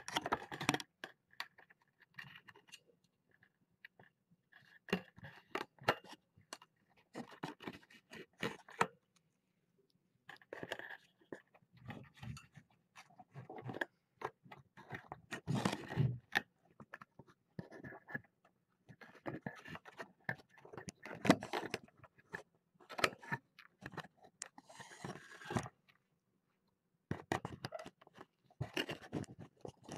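Irregular scraping, rustling and knocking of kittens brushing their fur against and pawing at a small camera right at its microphone, in short uneven bursts with brief pauses.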